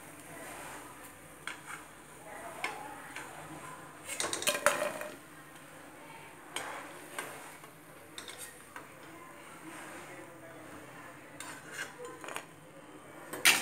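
A perforated steel ladle scraping and clinking against a steel kadai as fried pakodas are scooped out of the oil and tipped onto a plate. It comes as scattered knocks and scrapes, busiest about four seconds in, with a loud clank near the end.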